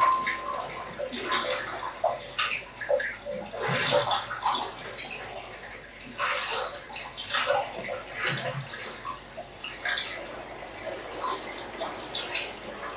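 Recorded water sounds played back over small Creative loudspeakers as part of a composed piece: irregular splashing and dripping with no steady tone.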